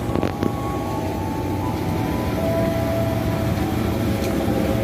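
Electric commuter train standing at the platform, a steady running hum with noise over it, while passengers board. A thin steady tone sounds for about a second and a half in the middle.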